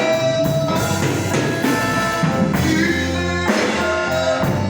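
Instrumental passage of a worship song between sung lines, played by a band with drum kit, guitar and bass.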